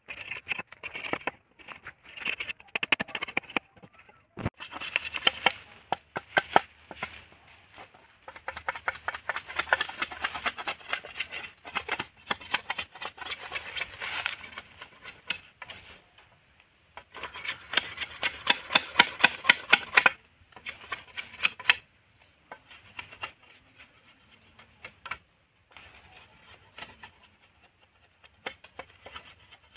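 Machete blade shaving and scraping down a bamboo stave in fast runs of short strokes, with brief pauses between runs. The strokes come more sparsely near the end.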